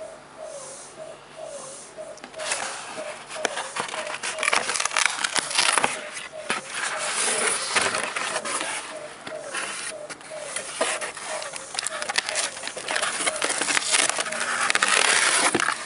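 Cardboard mailer envelope being pulled open by hand: rustling, scraping and crackling of cardboard and packing, with many small clicks, loudest near the end. A faint squeak repeats about twice a second throughout.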